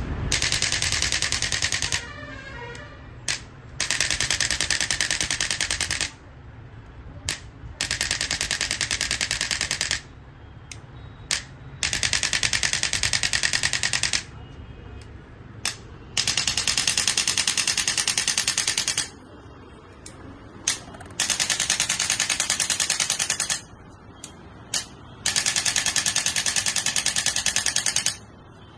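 Handheld electric percussion massager run in seven bursts of two to three seconds each, giving a fast, even rattle with short pauses and a few clicks between bursts.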